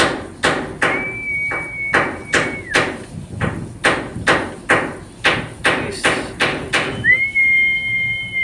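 A rapid run of sharp, evenly spaced knocks, about three a second, stopping near the end. A high steady tone sounds briefly about a second in, and again, with a second higher tone above it, over the last second and a half.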